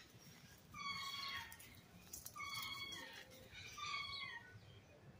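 A pet animal's shrill, pitched cries, four in a row, each dropping in pitch at the end: it is screaming for more food.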